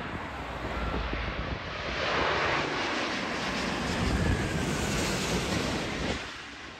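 Jet airliner on final approach passing close by to land, its engine noise a broad rush that swells about two seconds in and falls away near the end.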